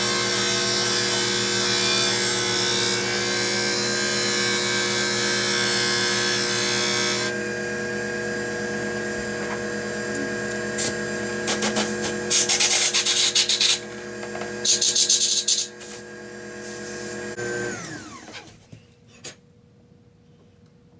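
Cue lathe motor running steadily while a drill bit bores into the end of a maple cue handle, with a loud cutting noise for the first seven seconds or so. Two loud bursts of hiss follow. Near the end the lathe motor winds down and stops.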